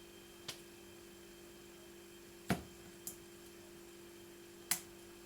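Four sharp plastic clicks, the loudest about halfway and another near the end, as the back housing of a Sony Ericsson Live with Walkman phone is prised up off its clips. A steady low mains hum runs underneath.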